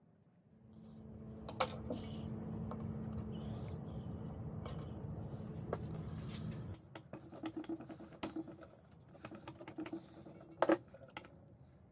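A steady low hum that stops abruptly about two-thirds of the way through, then a run of light metallic clicks and clinks as needle-nose pliers work on the parts of an old cast-iron sewing machine head, with one sharper double clink near the end.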